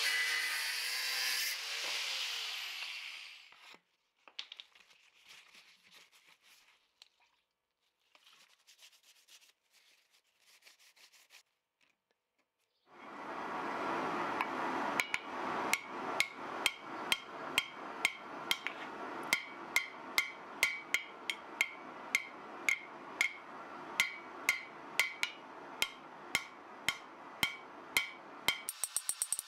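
Angle grinder cutting through a steel billet clamped in a vise, then spinning down after about three seconds. Later, after a quiet gap, a hammer strikes a glowing pattern-welded steel billet on the anvil, about two blows a second, over a steady rushing noise.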